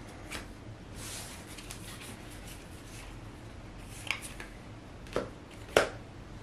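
Trading cards being handled and set down on a playmat: a soft rustle, then a few light taps a little apart near the end.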